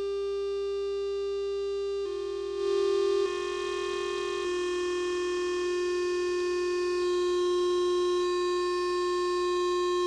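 Electronic synthesizer drone: a sustained tone with a stack of overtones that shifts in small pitch steps a few times in the first half, then holds steady.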